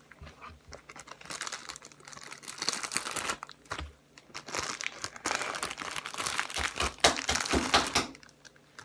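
Plastic bag crinkling and rustling in irregular spells as homemade slime is handled in and out of it, with small clicks and crackles.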